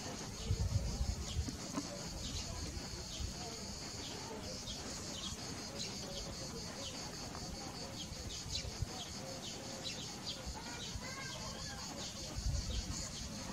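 Countryside ambience: birds chirping and chickens clucking over a steady high-pitched buzz, with low rumbles near the start and near the end.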